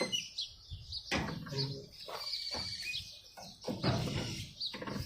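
Birds chirping in short calls, over a few knocks and rattles of mower parts being handled during assembly.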